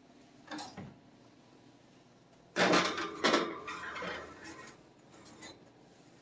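Oven door opened and a nonstick cake pan slid onto the wire oven rack: a soft knock under a second in, then a loud metal clunk about two and a half seconds in, followed by clattering and scraping of the pan on the rack for a second or two.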